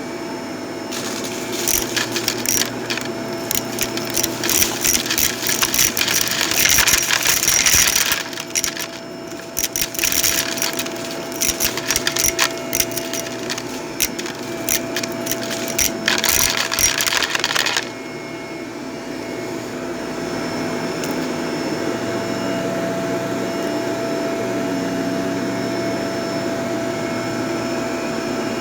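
Vacuum cleaner running with a steady motor whine while picking up gritty debris that rattles and crackles through it; the crackling stops about 18 seconds in and the vacuum runs on smoothly.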